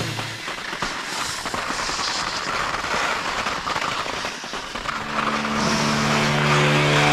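A rushing, crackling noise, then a held chord of background music swells in about five seconds in.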